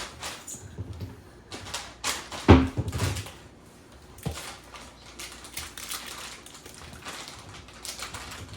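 Light clicking and knocking in a small room, with a louder knock about two and a half seconds in and another smaller one a little after four seconds.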